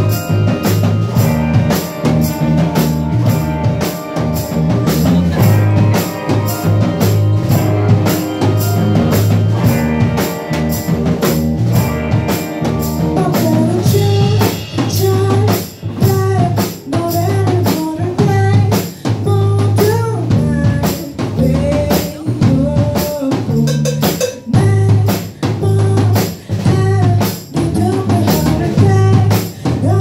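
Live indie rock band playing: a steady drum-kit beat with electric bass and electric guitar. A woman's lead vocal comes in about halfway through.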